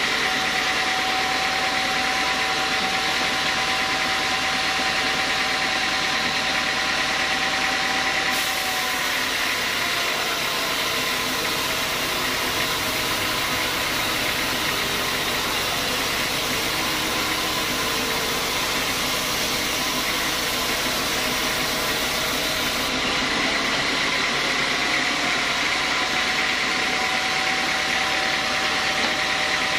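Sawmill band saw running steadily with a whine. From about eight seconds in until about twenty-three seconds, the blade cuts lengthwise through a large squared log, adding a high hiss over the machine noise. It then runs free again.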